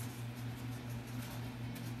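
A steady low hum, with faint small clicks from hands fitting a bolt on a toilet tank.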